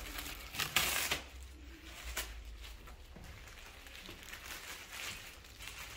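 Plastic wrapping film rustling and crinkling as it is handled, loudest in a short burst about a second in, with scattered softer rustles after.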